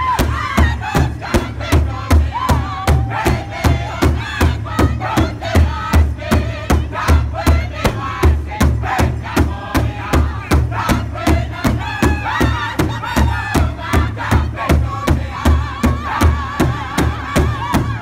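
Powwow drum group singing in high voices over one large shared drum, struck in unison with drumsticks in a steady, even beat.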